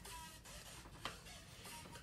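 Faint background music, with the scratching of a pencil writing on paper and a light tap about a second in.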